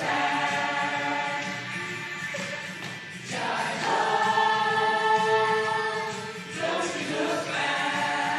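A group of adult voices, mostly women, singing together in chorus, holding long notes of about three seconds each with brief breaks between phrases.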